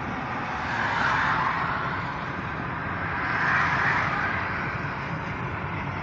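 Steady road and wind noise heard from inside a car driving at highway speed. The noise swells twice, about a second in and again around three and a half seconds in.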